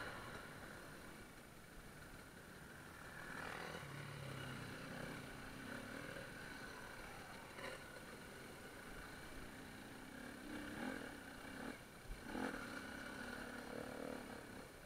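Faint enduro motorcycle engine running, its pitch wavering up and down a little, with a few faint clicks.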